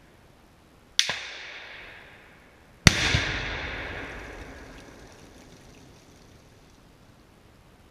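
Two sharp rifle-shot bangs about two seconds apart at a Tannerite target, each followed by an echo that dies away. The second, about three seconds in, is the louder, with a deeper boom and an echo rolling on for about three seconds.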